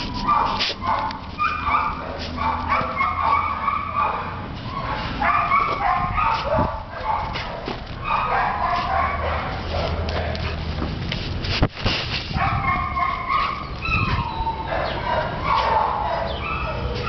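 Dogs barking and yipping over and over, with a sharp knock about twelve seconds in.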